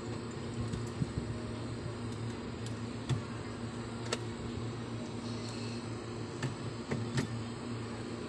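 Steady low machine hum, with a few light clicks and knocks as bottles and drink cartons are handled.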